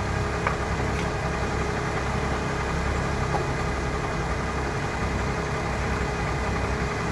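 A vehicle engine idling steadily, with a constant low running note.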